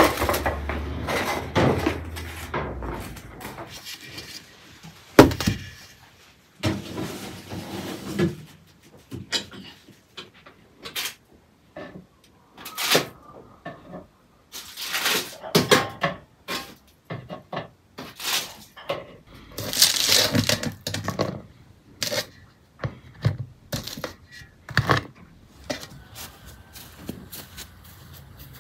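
A series of irregular knocks and clatters, the sharpest about five seconds in, with a voice at times.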